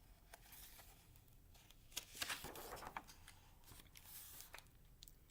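Faint paper rustling with light taps as a picture book's page is turned and handled, in three soft stretches: about half a second in, around two to three seconds, and near four seconds.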